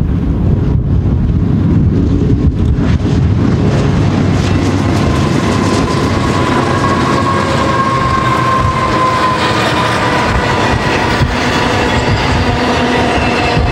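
BNSF GE diesel locomotives running past under power, followed by double-stack intermodal well cars rolling by with wheel clatter. A high steady wheel squeal rises out of the rolling noise about five seconds in and fades near ten seconds.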